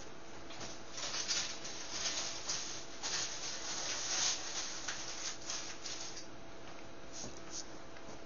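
Faint, irregular rustling and scraping of things being handled out of view, most of it between about one and six and a half seconds in, over a low steady hum.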